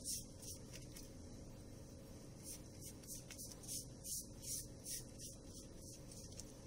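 Silicone pastry brush swishing oil over sheets of phyllo pastry: faint, quick brush strokes, a few a second in short runs, over a steady low hum.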